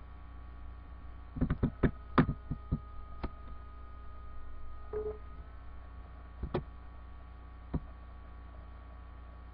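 Steady electrical mains hum in the recording, with sharp computer-mouse clicks over it: a quick run of clicks about a second and a half in, then single and paired clicks later.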